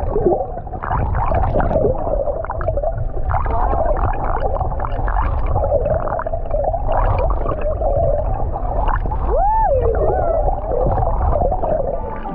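Muffled underwater sound picked up by a submerged camera: a steady low rumble under a wavering mid-pitched hum and gurgling water. A short squeal rises and falls about nine and a half seconds in.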